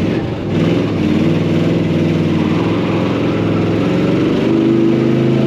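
1968 Ford F-100's 351 Windsor V8, fitted with a new HEI electronic distributor, heard from inside the cab as the truck pulls away under throttle. The engine note swells about half a second in, then runs at a fairly steady pitch.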